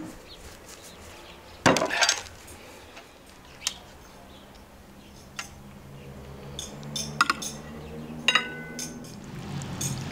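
Dishes and cutlery clinking and knocking: about half a dozen sharp, separate clinks, the loudest about two seconds in, and one near the end that rings briefly.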